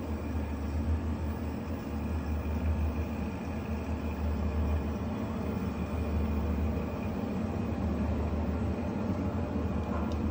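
Electric shop machine running steadily: a deep, even hum with a steady whir above it and no cutting or grinding strokes.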